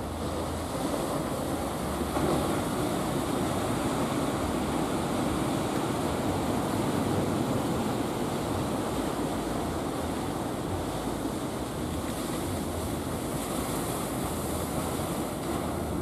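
Sea waves and surf washing steadily, with wind rumbling on the microphone.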